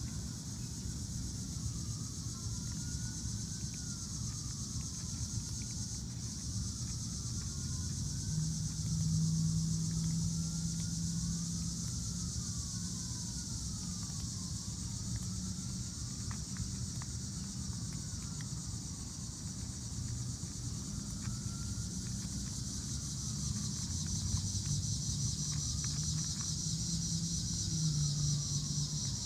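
Evening insect chorus, a steady high chirring of crickets, over a low drone of distant traffic that swells now and then. A faint wail rises and falls again and again, every few seconds.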